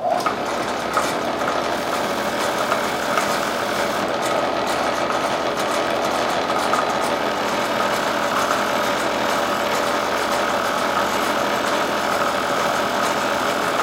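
An old bench buffer's motor starts at the outset and runs steadily, noisy, with its buffing wheel rattling.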